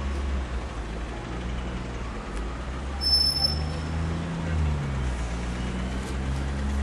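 Traffic: a vehicle engine running with a low rumble, its pitch rising and falling slightly, and a brief high squeal about three seconds in.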